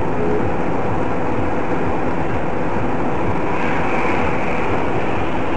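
Steady rumble of a car driving along a highway, heard from inside the cabin through a dashcam microphone: tyre and engine noise at an even level.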